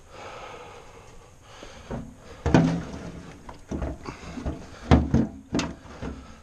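Irregular knocks and clunks as a Honda XL Varadero 125 motorcycle's fuel tank is worked loose and shifted on the frame. The loudest knocks come about two and a half seconds in and again about five seconds in.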